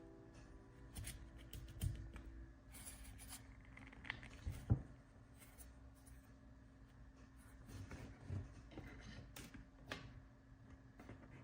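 Faint handling sounds: scattered small clicks, taps and rustles of drone parts and tools being handled at a workbench, over a steady low hum.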